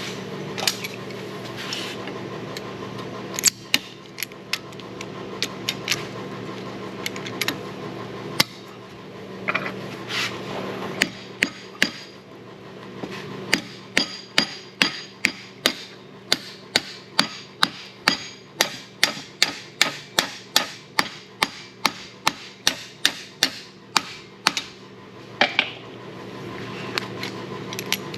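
Hand hammer blows on hot mild steel at the anvil: a few scattered strikes, then from about halfway a steady run of about two blows a second. A steady hum from the shop's fan runs underneath.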